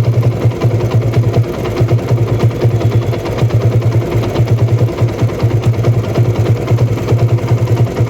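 TVS Apache RTR 160's single-cylinder four-stroke engine idling with a fast, even beat. Its timing-chain tensioner has just been replaced, and the owner hears no chain ticking.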